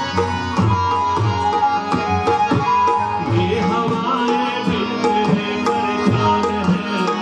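Qawwali music: a harmonium and keyboard hold sustained notes while a hand-played dholak beats a steady rhythm of drum strokes.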